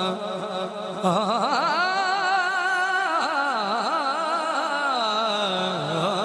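Male naat reciter singing a long, drawn-out melismatic line with a wide, wavering vibrato, opening a Punjabi naat. The line gets louder about a second in.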